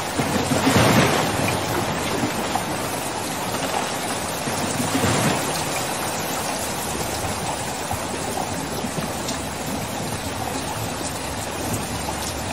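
Muddy floodwater rushing in a torrent: a steady roar of churning water, with louder surges about a second in and again around five seconds.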